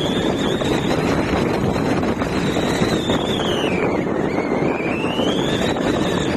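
Steady hiss of heavy rain, with a thin high whine that sinks about four seconds in and climbs back up.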